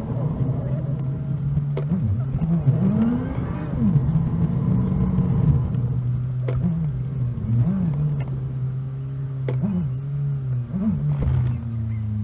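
Car engine and road noise played back at four times speed: a steady low hum whose pitch swoops up and down quickly several times, with a few sharp clicks.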